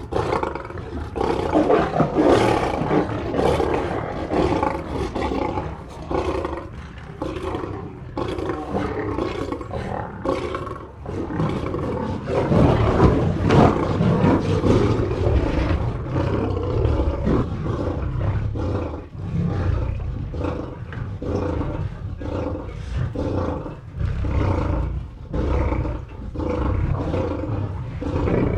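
Lions fighting: a continuous stretch of overlapping roars and snarls with rapid, chopping pulses, loudest and deepest from about halfway through.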